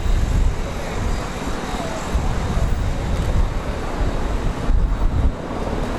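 Two Bell Boeing MV-22B Osprey tiltrotors flying past with their proprotors tilted up, giving a loud, rapid low throbbing over steady rotor and engine noise.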